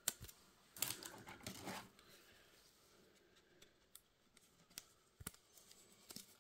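Faint handling noises of trading cards and their packaging: a soft rustle about a second in and a few light clicks.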